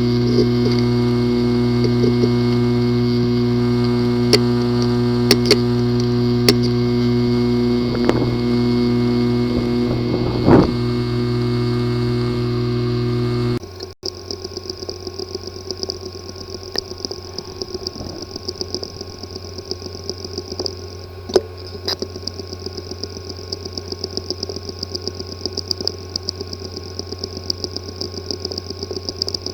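A hard drive with a physically damaged disk assembly: a steady buzz with a few sharp clicks, typical of this fault. About halfway through it cuts abruptly to a quieter, fast, even ticking.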